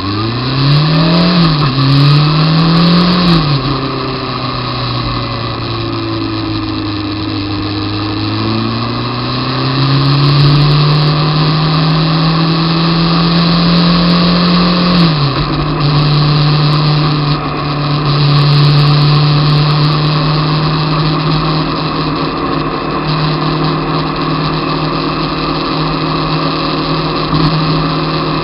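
Honda CBR600 F2's inline-four engine running under way. It revs up twice quickly in the first few seconds, climbs slowly in pitch through the middle, drops suddenly about halfway, then holds a steady pitch.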